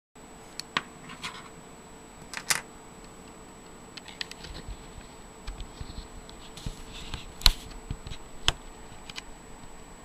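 Scattered light clicks and knocks of small parts being handled while the power supply board of a thermoelectric wine cooler is taken loose, the sharpest click about seven and a half seconds in.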